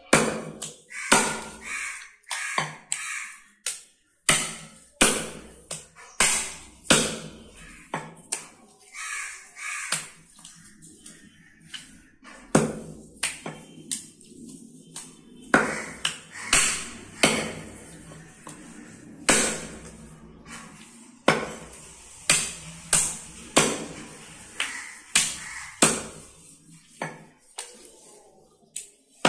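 Butcher's cleaver chopping goat meat and bone on a wooden log chopping block: a long run of sharp chops, irregular, about one or two a second, with a short lull near the middle.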